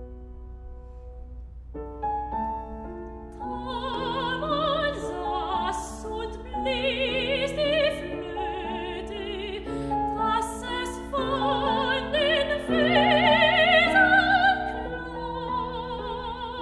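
Soprano singing a German art song with wide vibrato, accompanied on grand piano. The piano plays alone for about the first three seconds before the voice comes in.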